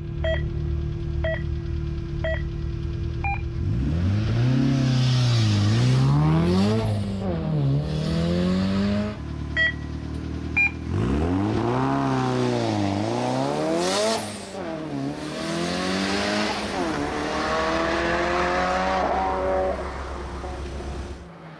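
Start-line timing beeps count down about a second apart, the last one higher-pitched, while a Nissan 200 SX race car idles; then the engine revs hard and launches, its pitch climbing and dropping again and again as it changes gear. The countdown and launch happen twice: four beeps and a launch near the start, and two beeps and another launch about halfway through.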